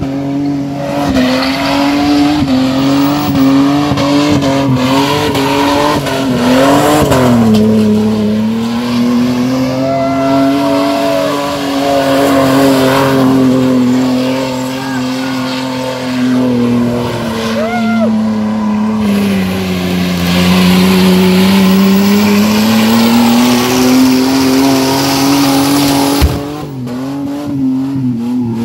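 Car engine held at high revs with the tyres squealing in a long burnout, the revs wavering and dipping briefly about seven seconds in and again around twenty seconds before climbing back.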